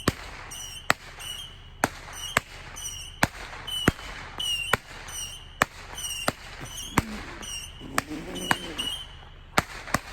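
Fireworks going off in a rapid, irregular string of about fifteen sharp pops, many followed by a short high whistle.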